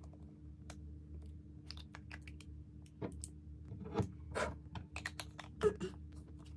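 Small plastic clicks and taps of skincare packaging being handled and opened by hand: a jar turned in the fingers, then a tube's cap and seal picked at. A few louder clicks come about three, four and five and a half seconds in, over a faint steady hum.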